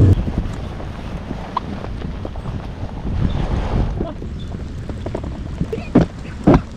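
Wind buffeting the microphone in a low, uneven rumble, with scattered light clicks and two sharper knocks near the end.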